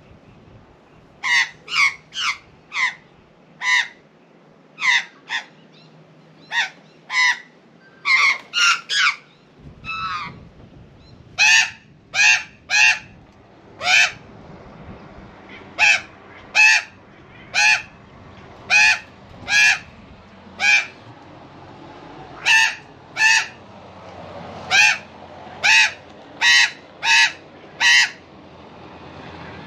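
Australian magpie squawking loudly in a long run of short, harsh calls, about one or two a second with a brief lull about ten seconds in. These are strident scolding calls at a cat near her nest.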